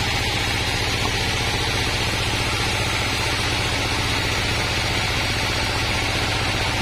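Diesel-engine-driven band sawmill running steadily, its band saw blade ripping a board of wadang timber.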